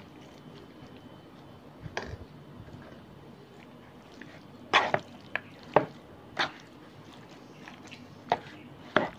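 A spoon knocking against the side of a mixing bowl while spooning in and stirring a chicken salad, about eight short sharp taps at uneven intervals, most of them in the second half.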